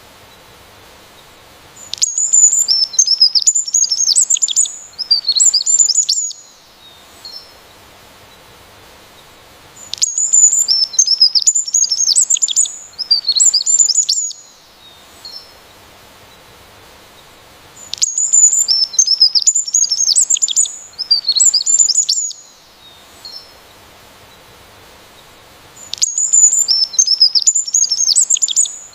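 A songbird singing a fast, high-pitched run of chirps and trills lasting about four seconds, repeated every eight seconds in the same pattern each time, with a faint short call in the quiet between phrases.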